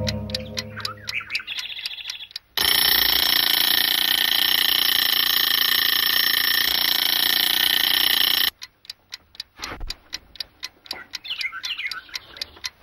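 A clock ticking about four times a second. A loud, steady outdoor background noise with fixed high tones cuts in abruptly for about six seconds, then cuts off, and the ticking returns.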